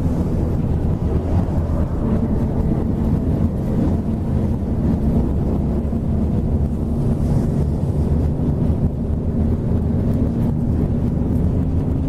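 Steady drone of a moving Scania K113 coach, heard from inside the passenger cabin: its diesel engine running under way with road and wind noise.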